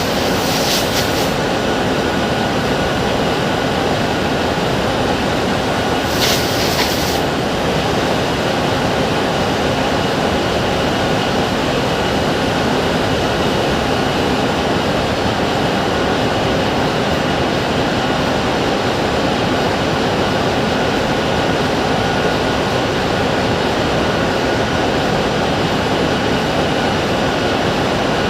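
Loud, steady running of heavy machinery, with a short high hiss about six seconds in.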